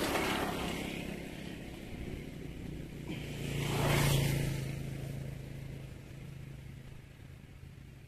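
Road traffic passing: one vehicle going by at the start, then a louder one that swells to a peak about four seconds in and fades away.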